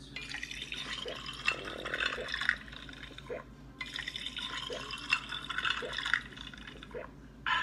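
Drink-simulator app playing a drinking sound effect through a tablet's speaker: liquid draining with low gulps about once a second, in two runs with a short break between.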